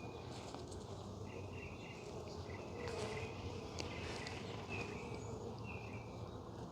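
Honeybees buzzing around an open hive in a low, steady hum. A short, high chirping call repeats every half second or so, and a couple of faint clicks come about halfway through.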